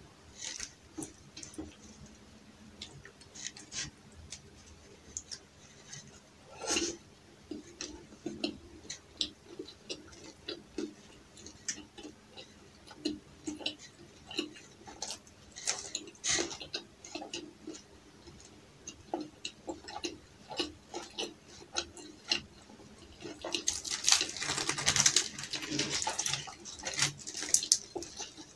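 Close-miked eating sounds: wet chewing and lip smacks with sharp crunchy clicks, as chicken curry, flatbread and raw onion are eaten. A denser stretch of crackling comes near the end, when flaky paratha is torn by hand.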